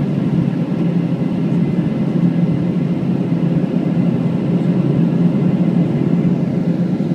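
Steady drone inside the cabin of a Boeing 777-200ER in flight after takeoff: engine and airflow noise, deep and even.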